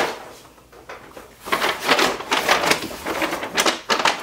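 A sharp knock of a grocery item set down on a counter, then, after a short lull, a few seconds of rustling and crinkling as groceries are handled and pulled from a shopping bag.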